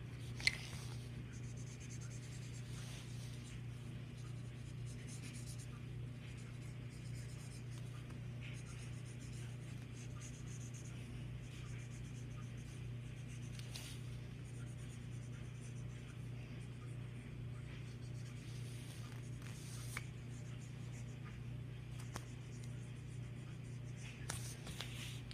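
Marker colouring on paper: faint, scratchy strokes over a steady low hum, with one sharp click just after the start.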